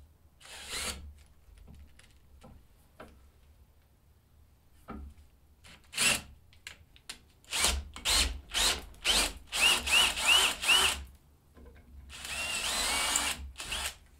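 DeWalt cordless drill boring out a stripped cylinder-stud hole in an aluminium two-stroke engine case with an 8.3 mm (21/64 in) bit, opening it up for a Helicoil thread insert. It runs in short trigger blips, then a quick string of pulses from about halfway, each with a rising motor whine. Near the end comes a steadier run of about a second and a half.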